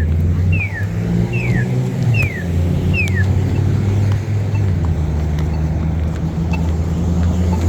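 Polara iDS accessible pedestrian signal's walk tone: a short falling electronic chirp repeated about every 0.8 seconds, signalling the walk interval, which stops about three seconds in. Under it runs the steady low rumble of vehicle engines idling at the intersection.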